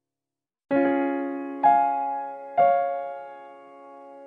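Background music: keyboard chords struck three times, about a second apart, each fading away, after a moment of silence at the start.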